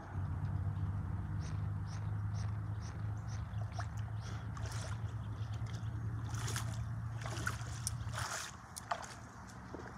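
Baitcasting reel being cranked to bring in line: a steady low whir with light clicks, stopping about eight seconds in.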